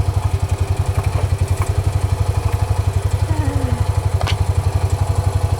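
A small engine idling steadily, with a fast, even low pulsing.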